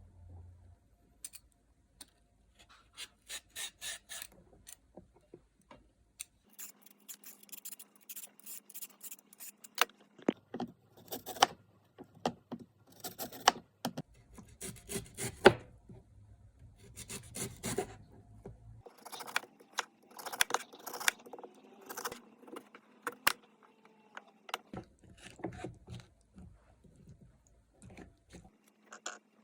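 Food being cut and scraped on a cutting board: irregular rasping, scraping strokes in clusters with short pauses.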